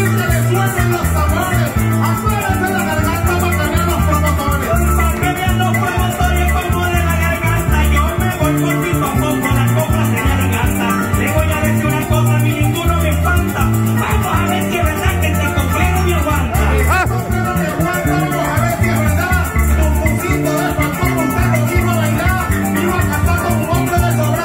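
Live llanero joropo music: a llanera harp and electric bass play with shaken maracas, and a man sings verses of a contrapunteo into a microphone over them.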